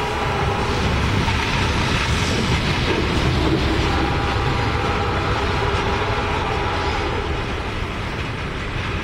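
Freight cars (loaded log cars and covered hoppers) rolling away over the track: a steady rumble of wheels on rail with faint steady high tones above it, easing slightly near the end.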